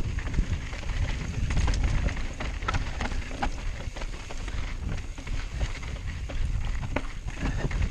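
Mountain bike descending a rocky trail: tyres crunching over loose rock and gravel, with a steady low rumble and many sharp knocks and rattles from the bike as it bounces over the rocks.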